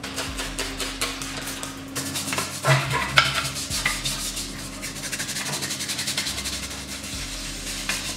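Quick, repeated rubbing and scraping strokes on a hard surface, several a second, picking up about two seconds in.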